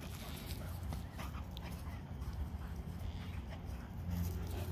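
Dogs at play, making a few short, faint sounds over a steady low hum.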